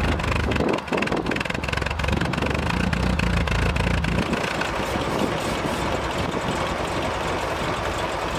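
Triumph Spitfire Mk3's four-cylinder engine idling through its old exhaust, run to warm the engine. About four seconds in the deep exhaust rumble drops away, leaving a lighter steady engine sound.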